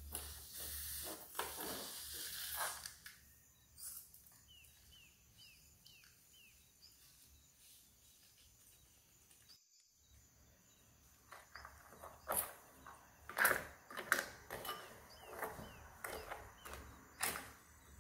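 Hands working slime ingredients in a bowl: crackly rustling in the first few seconds, a quieter stretch with a few short chirping squeaks, then from about eleven seconds a plastic spoon stirring slime with a run of sharp sticky clicks.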